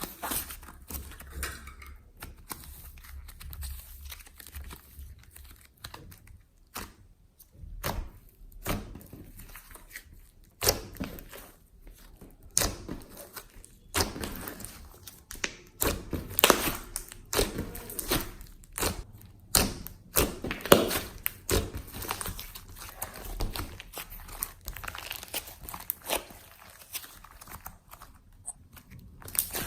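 Glossy slime being kneaded and stretched by hand, with clay worked into it: irregular sticky clicks, pops and crackles, coming thicker and louder after the first third.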